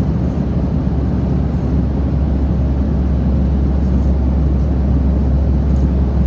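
Steady low rumble of a passenger jet's cabin: engine and airflow noise heard from a seat inside the airliner.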